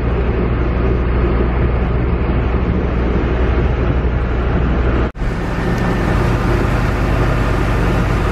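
Steady low rumble of a moving vehicle, with an abrupt break about five seconds in.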